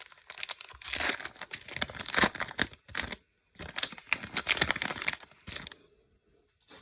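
Foil Pokémon trading-card booster pack (Team Up) being torn open, its wrapper crinkling and crackling in two spells of a couple of seconds each.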